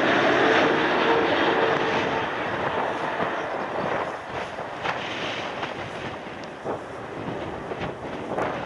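The four GEnx turbofan engines of a Boeing 747-8F freighter at low approach power as it passes overhead and flares to land: a broad jet roar, quiet for so large an aircraft, with a short steady whine about half a second in, fading as the aircraft moves away down the runway.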